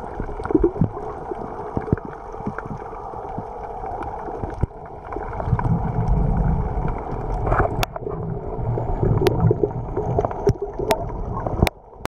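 Muffled underwater ambience on a coral reef: a steady water hiss with deeper gurgling surges through the middle and later seconds, and a few sharp clicks in the last few seconds.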